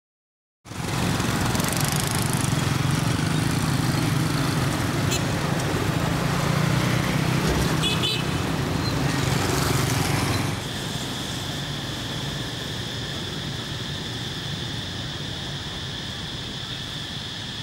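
Motorbike street traffic: small engines running and passing, with a brief horn toot about eight seconds in. About ten seconds in it cuts to quieter outdoor sound with a steady high-pitched drone.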